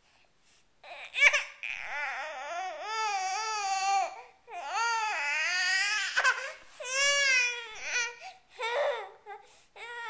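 Young baby's high-pitched wails, long and wavering, in several bouts with short breaks, starting about a second in.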